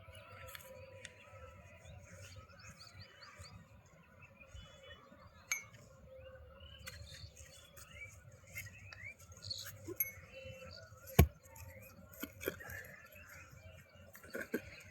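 A few sharp metallic clinks at irregular intervals, the loudest about eleven seconds in, over faint bird chirping.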